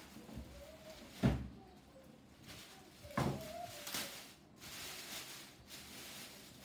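Two dull thumps about two seconds apart, the first the louder, followed by a brief rustle of plastic wrapping as a plastic-wrapped bag is handled and lifted out of a cardboard box.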